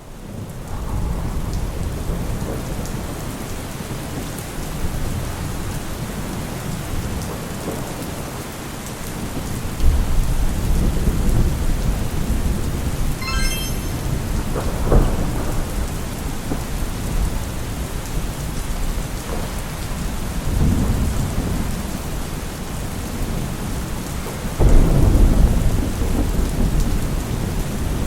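Recorded thunderstorm ambience: steady rain with several low, rolling rumbles of thunder, the loudest near the end.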